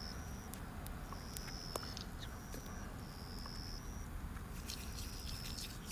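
Fire-pit crackling with scattered sharp pops over a low rumble, while a thin high-pitched call from a small creature repeats about every second and a half.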